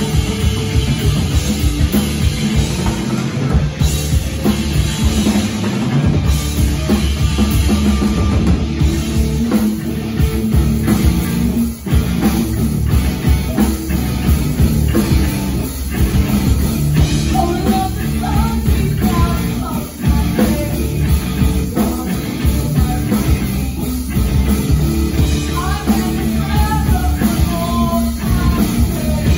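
Live rock band playing loud: electric guitar, electric bass and drum kit, with a singer's voice coming in over the second half.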